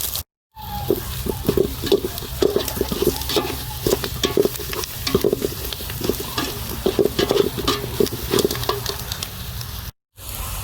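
Onions and chilli powder frying in oil in a pot, sizzling while a ladle stirs and scrapes them with frequent short scraping knocks. The sound drops out completely for a moment twice, near the start and near the end.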